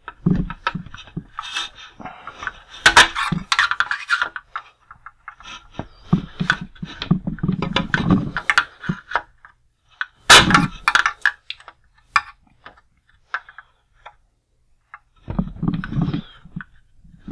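Metal pliers clicking, knocking and scraping against the hard plastic of a 1988 Cobra BUGG toy vehicle as the peg joints of a gun turret mount are squeezed and worked loose. The clicks come in irregular clusters, loudest about three seconds in and again about ten seconds in, with a pause of about two seconds near the end.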